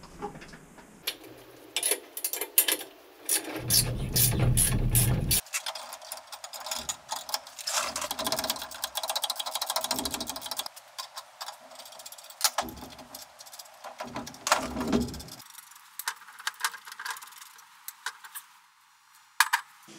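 Hand ratchet clicking rapidly for several seconds, around the middle, as the bolts holding a turbocharger to a steel exhaust manifold are undone. Scattered metal clinks and knocks come from the parts being handled, with a brief low rumble about four seconds in.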